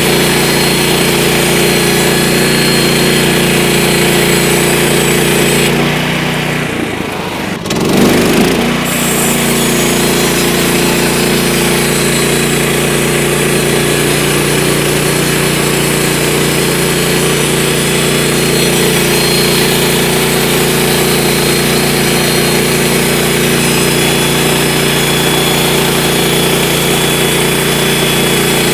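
Woodland Mills portable band sawmill's gasoline engine running steadily. About six seconds in the sound briefly drops and goes dull, then comes back at full level.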